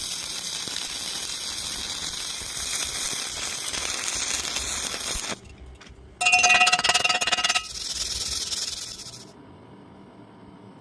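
Electric welding arc crackling and hissing for about five seconds. After a short gap comes a louder burst with a metallic ringing tone, then more arc hiss that stops about nine seconds in.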